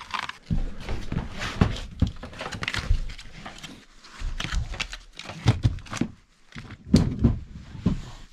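Irregular knocks, thumps and rustling of things being handled close by, with a short lull near the middle.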